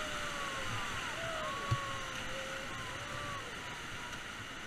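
Steady rush of river water, with faint distant voices calling and one short dull knock about two seconds in.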